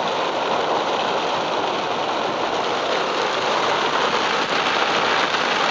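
Heavy rain falling on a car's roof and windows, heard from inside the car as a steady, dense hiss.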